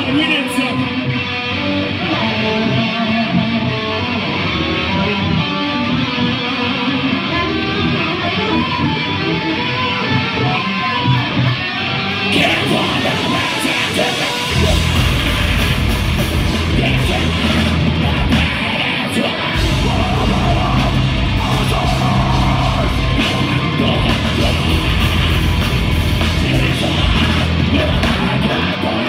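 A metal band playing live: a guitar-led passage at first, then the full band comes in about twelve seconds in, with a heavy low end from about fifteen seconds.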